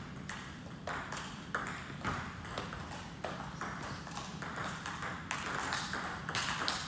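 Table tennis balls ticking against bats and table tops: a series of sharp, irregular clicks, several a second.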